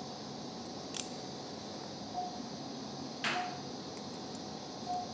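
Anaesthesia monitor beeping a short mid-pitched tone about every one to one and a half seconds over a steady ventilation hum, with a sharp click about a second in and a brief swish just after three seconds.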